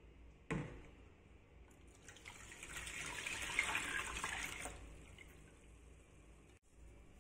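A short knock, then milky liquid poured from a stainless steel saucepan into a plastic tub: a splashing pour that swells, peaks, and tails off into drips.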